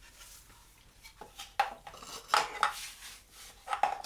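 Handling noises: a handful of short, light clicks and knocks of hard objects being picked up and set down, with no motor running.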